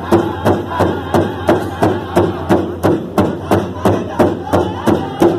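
Powwow drum group singing: several men strike a large shared powwow drum with sticks in a steady beat of about two strokes a second, their voices singing together over it.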